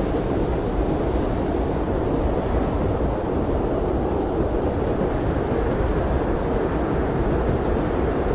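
Blizzard wind blowing steadily: a deep, even rushing noise with little high hiss and no gusts or breaks.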